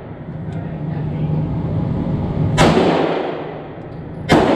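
Two pistol shots from a Springfield Armory XD-M Elite, about 1.7 seconds apart, the second near the end. Each crack rings on in a long echo off the indoor range's walls, over a steady low hum.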